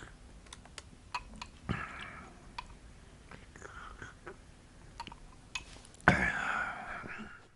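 Faint, breathy vocal sounds from a person, soft and whisper-like, with the loudest near the end, among small scattered clicks.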